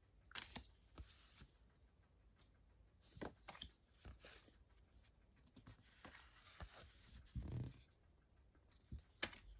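Faint handling of printed card: art cards from a disc package being shuffled and turned over, in a few scattered soft rustles, with a dull thump past the middle and a sharp click near the end.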